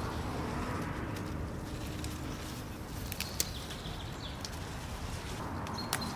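Tomatoes being picked off the vine by hand, with a few short, sharp snaps and clicks of stems breaking and fruit being handled, over a steady outdoor background with a low rumble.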